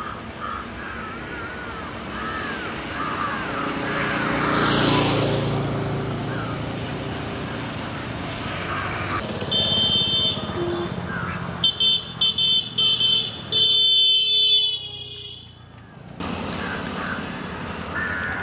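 Road traffic: a vehicle passes about four seconds in, and a vehicle horn sounds briefly near ten seconds, then in a run of short toots from about twelve to fifteen seconds. Birds chirp in the first few seconds.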